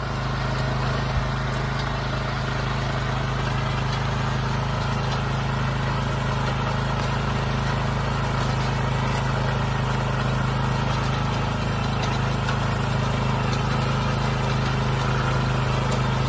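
Walk-behind cultivator's small engine running steadily under load as it pulls a ridging plow through the soil.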